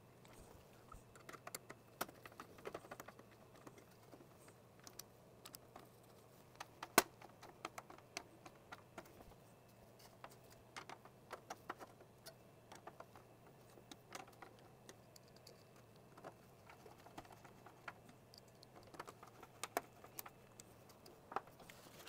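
Screwdriver and hands working on a metal PC case while a rear case fan is screwed in: irregular small clicks, taps and scrapes, the sharpest about seven seconds in.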